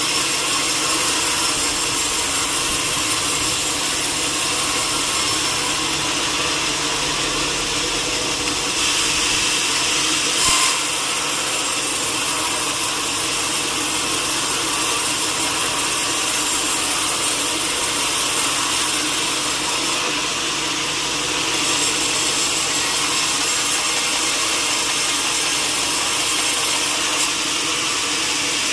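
Sawmill saw cutting through wood: a steady, loud grinding noise over the hum of the machine. It turns briefly brighter and louder about ten seconds in.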